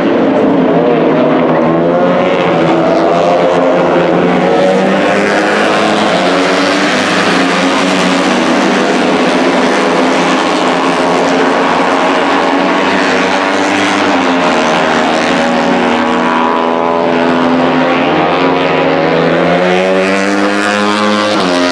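Grand Prix racing motorcycles passing one after another at high revs. Several engines overlap, their pitch rising and falling as they accelerate and change gear.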